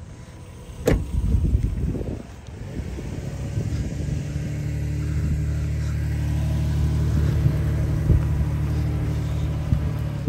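Off-road vehicle's engine running under load in mud, building in loudness over a few seconds and then held at steady revs. A sharp knock sounds about a second in.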